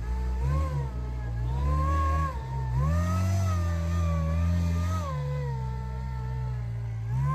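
Rock crawler buggy's engine revving up and down in repeated throttle bursts as it climbs over rocks, with one longer held rev in the middle.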